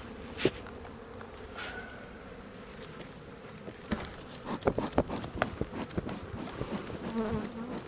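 Honeybee colony buzzing steadily around an opened hive, with scattered sharp clicks and knocks, most of them a little past the middle.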